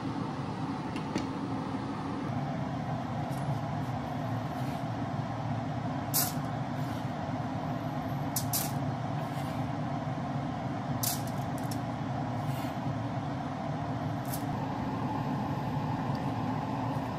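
Steady low mechanical hum, with a few sharp clicks and taps from kitchen utensils on a wooden cutting board.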